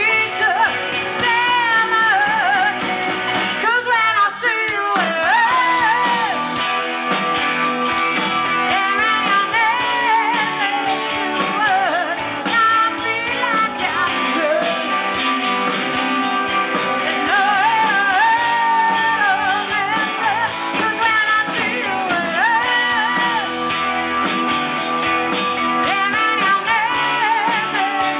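Live rock band playing loud through a PA: electric guitars, bass, drums and keyboard, with a woman singing lead.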